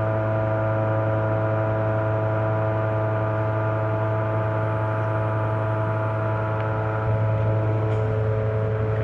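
Lincoln PowerWave 455M welding power source running under a test load of about 100 amps, with its cooling fan running: a steady hum holding several even tones, which grows slightly louder about seven seconds in.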